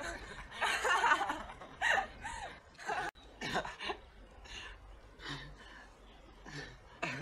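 A young woman laughing and giggling in short bursts, cut off abruptly about three seconds in; fainter short sounds follow.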